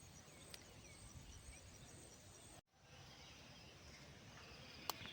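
Near silence: faint outdoor ambience with a few faint bird chirps and a faint insect-like trill, broken by a brief dead gap about halfway through.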